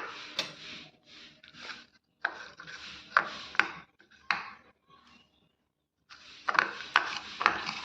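A spoon scooping ginger garlic paste, scraping and clicking against its container and a bowl, in several short bouts with a pause in the middle.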